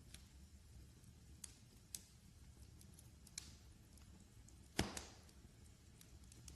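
Wood fire in a fireplace crackling faintly: scattered sharp pops over a low rumble, with the loudest, a quick double pop, a little under five seconds in.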